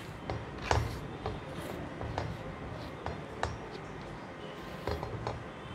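A hand sweeping chopped fenugreek leaves off a plastic cutting board into a steel mixing bowl: soft rubbing and scraping with scattered light taps.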